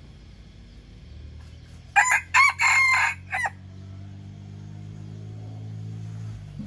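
A young red junglefowl rooster crowing once, a short broken crow of about a second and a half. A low steady rumble runs underneath.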